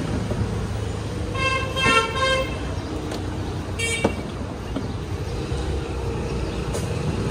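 Street traffic rumbling, with vehicle horns tooting: several short toots about one and a half to two and a half seconds in, and another brief one about four seconds in.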